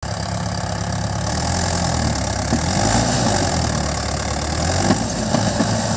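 Mahindra 575 DI tractor's four-cylinder diesel engine running under heavy load as it hauls a loaded trolley, the load enough to lift the front wheels. It runs steadily, getting a little louder after the first second.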